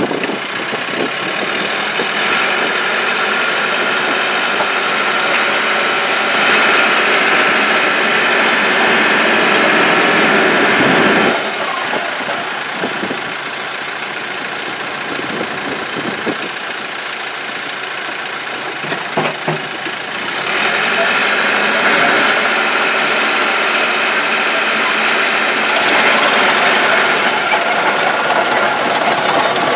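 Caterpillar D7 bulldozer's diesel engine running while the dozer pulls a plow. The sound swells and eases: louder for the first ten seconds or so, quieter for a stretch, then louder again after about twenty seconds.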